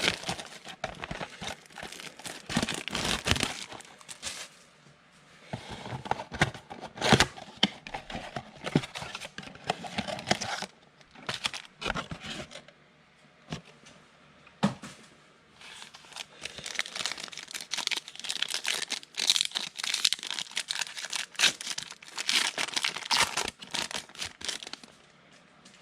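Trading card pack wrappers being torn open and crinkled, in irregular bursts with sharp crackles and pauses, as packs are opened and cards handled.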